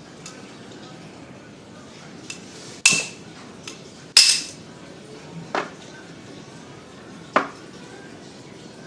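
Metal tools and electric-drill parts knocking and clinking during gear replacement: about six separate sharp knocks, the two loudest about three and four seconds in, each with a short metallic ring.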